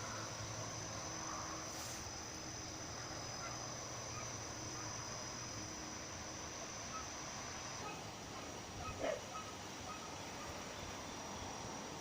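Steady wind with faint, scattered clinks of a seashell wind chime. A steady high whine stops about eight seconds in, and a short animal call comes about a second later.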